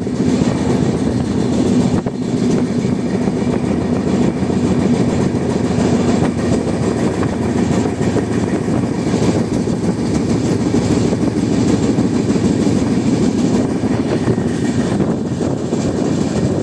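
Steady rumble and rattle of a moving passenger train's wheels running over the rails, heard from aboard the coach.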